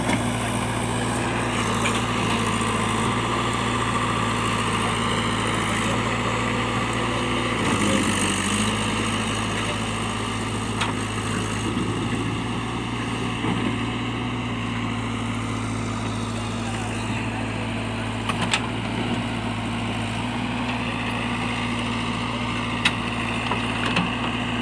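JCB backhoe loader's diesel engine running steadily, its pitch dipping briefly about eight seconds in, with a few faint knocks.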